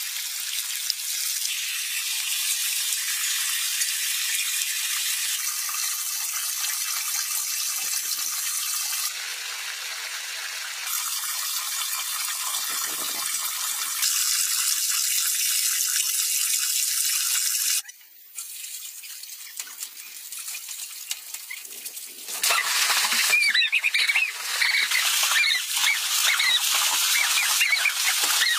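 Water running down a split-bamboo channel and pouring into a pool, a steady high rushing that changes character at several cuts. About three quarters of the way in it grows louder and more splashy, as swimmers thrash in the pool, with high wavering squeaks over it.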